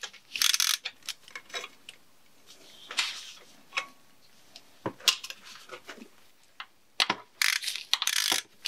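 Hands working an engine wiring harness free of its clamps among the hoses: scattered clicks and knocks, with a longer rustling scrape about half a second in and another near the end.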